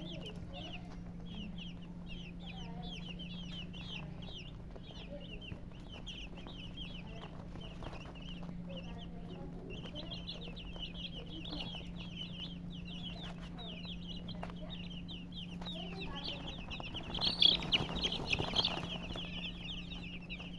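Many chicks peeping continuously, a dense stream of short, high, falling chirps, over a steady low hum. About seventeen seconds in, a louder burst of peeping and noise lasts a second or two.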